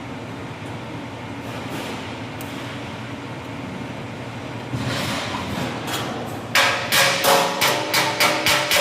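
A steady mechanical rumble, then, about three-quarters of the way in, a fast series of hammer blows on metal, about three a second, each ringing.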